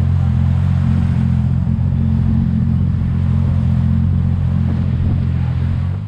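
A 250 hp jet boat engine running steadily at speed, with a steady engine drone over rushing water and wind. It drops away right at the end.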